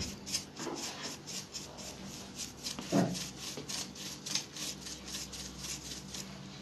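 Paintbrush scratching back and forth over a hardened modelling-dough relief in the dry-brush technique, a quick run of short rubbing strokes, a few a second, with a soft knock about three seconds in.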